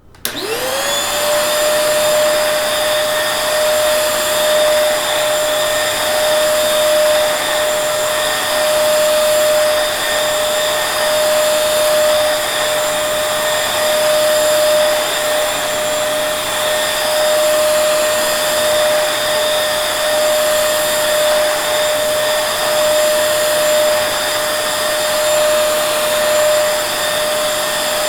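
Vacuum cleaner switched on: its motor whine rises quickly in pitch within the first second, then runs steady and loud with a strong rushing hiss of air.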